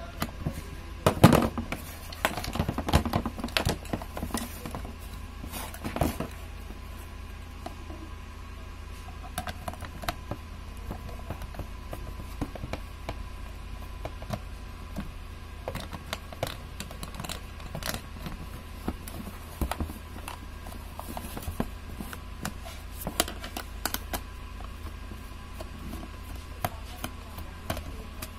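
Screwdriver unscrewing the screws of a plastic heat gun housing: scattered clicks and knocks of the tool, screws and housing being handled, busiest in the first few seconds. A steady low hum runs underneath.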